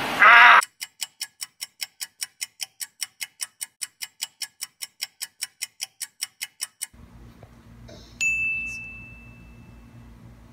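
Clock ticking, about four ticks a second, stopping about seven seconds in, after a short loud sound at the very start. Then faint room tone and a single bright ding that rings out and fades over about two seconds.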